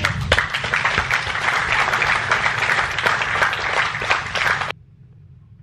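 Large group of people applauding, dense clapping that cuts off abruptly about a second before the end.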